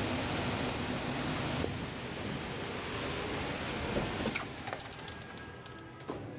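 Steady rain hissing on wet pavement, falling away abruptly less than two seconds in, followed by a few scattered knocks and clicks.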